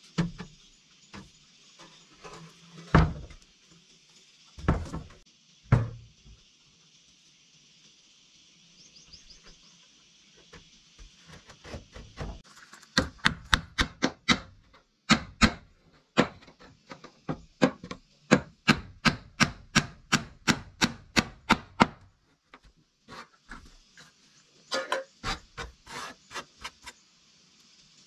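Hard knocks of a tool striking wood during woodworking. A few separate blows come in the first six seconds, then a steady run of about three strikes a second for some nine seconds, and a shorter run of strikes near the end.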